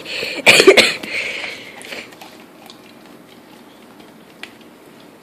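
A dog licking right at the microphone: a few loud, wet licks and lip-smacks in the first two seconds, then only faint ticks.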